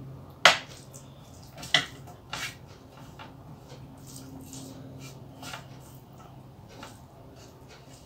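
Metal tableware clinking as food is eaten by hand from a metal plate with small metal bowls: a sharp clink about half a second in, two more within the next two seconds, then a few faint ticks, over a steady low hum.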